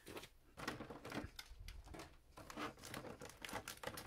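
Foil Pokémon card booster packs crinkling and rustling as they are handled, in an irregular run of crackles.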